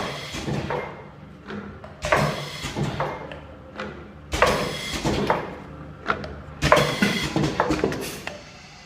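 Automatic turntable ultrasonic tube sealing machine running, with sharp mechanical clunks about every two seconds and smaller knocks and rattles between them as it cycles.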